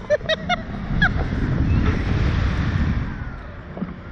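Air rushing over the microphone of a camera mounted on a Slingshot reverse-bungee ride capsule as it swings, a loud even rush that eases near the end. A few short vocal sounds from the riders in the first second.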